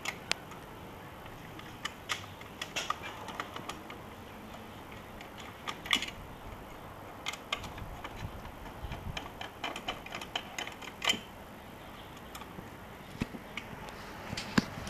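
Irregular small clicks and taps as a small Phillips screwdriver unscrews the tiny screws holding an Epson Stylus Photo RX685's print head, with hard plastic parts knocking as they are handled.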